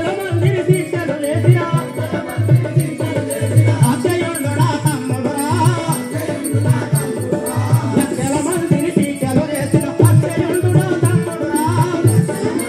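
Live Telugu folk-drama music: a hand drum beating a steady rhythm of about two to three strokes a second, with a wavering melody above it.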